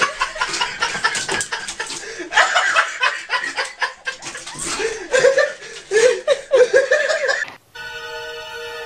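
A person laughing in repeated choppy bursts. Near the end it cuts off abruptly and music with steady held tones begins.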